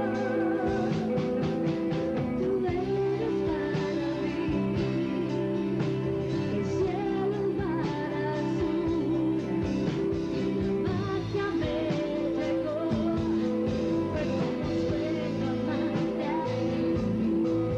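A rock band playing a song live: steady drums, bass and guitars under a bending melody line.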